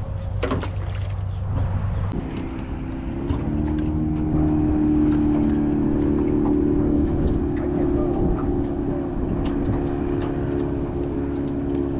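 Boat motor running steadily. About two seconds in its pitch steps up, and it gets louder a couple of seconds later, as the motor is throttled up. A few sharp clicks sound near the start.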